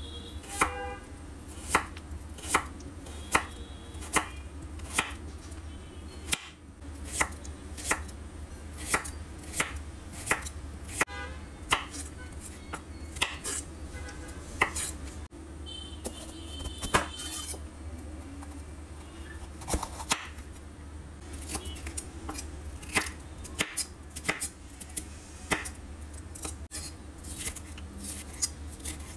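A chef's knife cutting through carrot and later red bell pepper on a wooden cutting board. Each cut ends in a sharp knock of the blade on the board, about one to two a second at an uneven pace, over a steady low hum.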